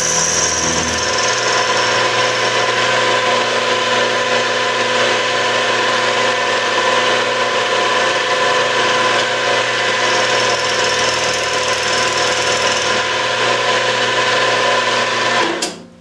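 Small milling machine's spindle running with an end mill making the final flattening cut across damaged speaker-jack hubs: a steady machine hum with a steady cutting noise over it. It cuts off suddenly near the end.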